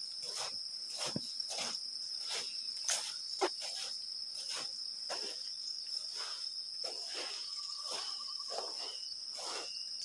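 Footsteps on a soft muddy path, about two a second, over a steady high-pitched insect drone like crickets.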